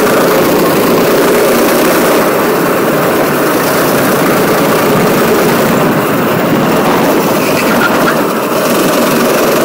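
Go-kart engine running at speed, heard loud and steady from the driver's seat.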